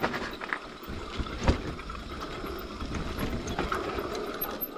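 Mountain bike riding down a dirt trail: steady tyre and wind noise with irregular knocks and rattles from the bike passing over bumps.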